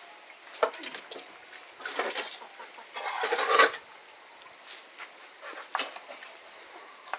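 Metal pots and bowls being washed at an outdoor water tap: scattered clinks and knocks, with a louder noisy rush of water and scrubbing about three seconds in.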